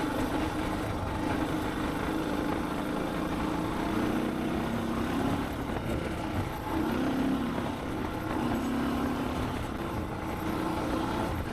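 Suzuki DR650's single-cylinder four-stroke engine running at a steady cruise under riding noise, its pitch dipping and rising slightly a few times.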